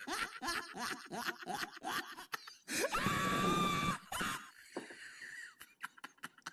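A person's voice: short choppy sounds, then a strained, held cry lasting about a second near the middle.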